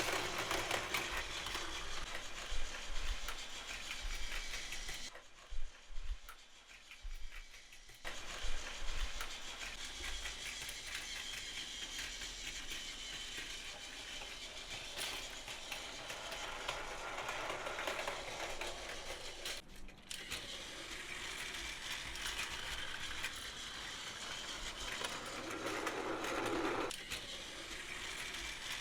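Battery-powered Plarail toy trains running on plastic track: a steady motor whir with the rattle and clicking of the cars over the track, quieter for a few seconds about five seconds in.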